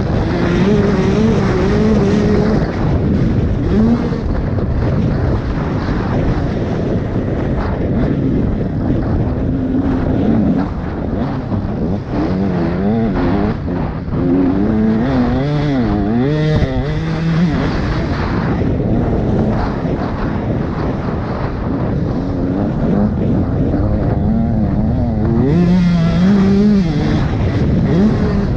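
Motocross bike engine being ridden hard, revving up and falling back again and again as the throttle opens and closes, with wind and track noise underneath.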